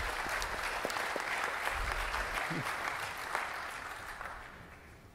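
Audience applauding, a dense patter of many hands clapping that thins and fades out over the last second or so.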